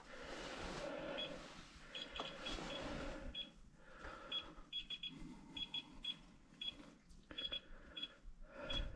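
Bella household radiation dosimeter, a Geiger-counter type, beeping in short, high, irregular blips, each beep one detected radiation pulse. The beeps come sparsely at first and grow more frequent from about halfway.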